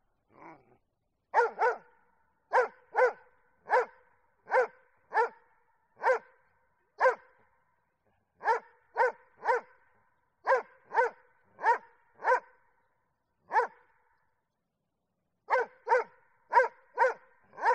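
A dog barking over and over in short barks, often in quick runs of two or three, with a pause of about a second a little before the middle and a longer pause of nearly two seconds near the end.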